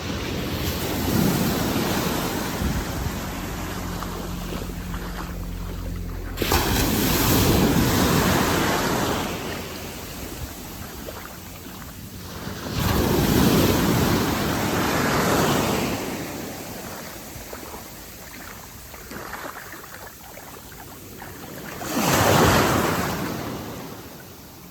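Small Caribbean Sea waves washing in around a wader, the surf rising and falling in four surges, the last one short and the loudest.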